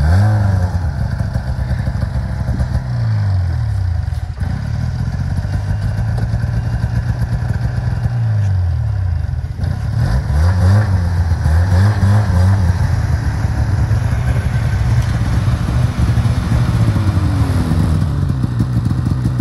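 Snowmobile engine running loud under load, its pitch rising and falling again and again as the throttle is opened and eased.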